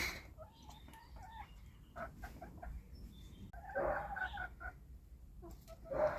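Chickens clucking: short pitched calls in scattered runs, with a louder, longer call about four seconds in.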